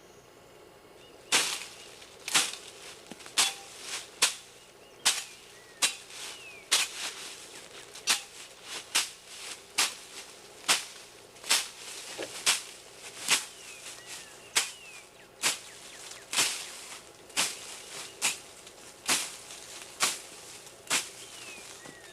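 A long series of sharp cracks or knocks, about one a second and fairly even, starting about a second in, with a few faint falling chirps between them.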